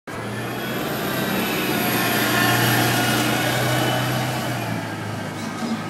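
Loud, steady engine noise of something passing, with several held tones, swelling to a peak about two and a half seconds in and then fading.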